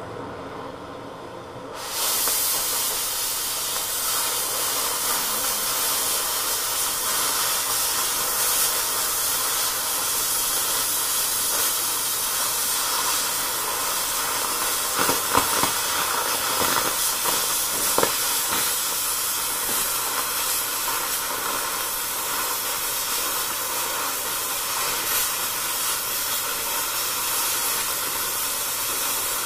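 Oxy-fuel cutting torch cutting through steel. The preheat flame's quieter hiss jumps about two seconds in to a loud, steady rushing hiss as the cutting oxygen comes on, with a few brief pops partway through.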